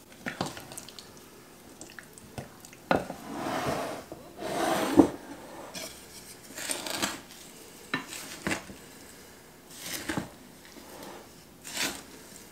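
Wooden spoon stirring diced apricots and sugar in mixing bowls, with scattered knocks and scrapes of the spoon against the bowl sides; the sharpest knock comes about five seconds in.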